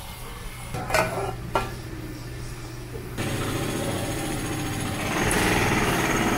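Two short knocks, then a kitchen spray tap running a stream of water onto boiled soybean sprouts in a plastic basin: a steady rush of water that starts about three seconds in and grows louder near the end. A low, steady hum runs underneath.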